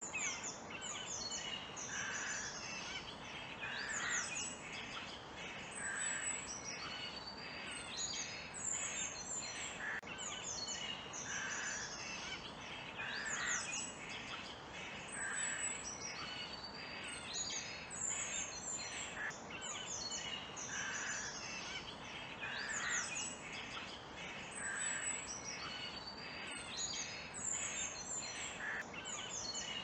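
A chorus of forest birds singing and calling, with many overlapping chirps and whistles, over a steady background hiss.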